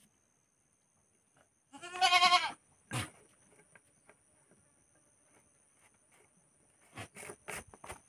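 A goat bleats once, a wavering call of under a second, followed by a single knock. Near the end come a few sharp clicks.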